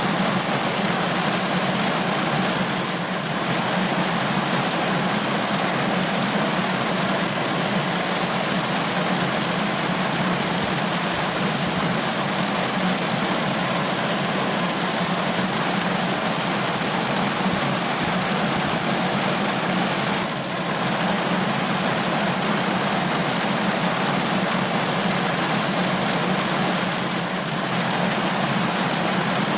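Heavy rain falling steadily, a dense, unbroken hiss of drops.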